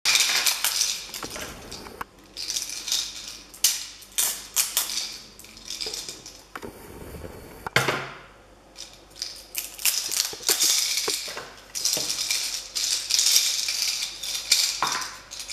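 Thin clear plastic wrapping crinkling and crackling in irregular bursts as a small toy is unwrapped by hand, easing off briefly past the middle.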